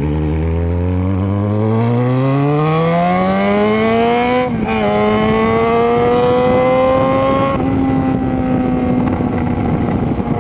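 Yamaha XJ6N's 600 cc inline-four through a Power GP2 4x1 full aftermarket exhaust, pulling hard with its pitch rising for about four seconds, dipping at an upshift, climbing again more slowly, then a second shift and a steady cruise.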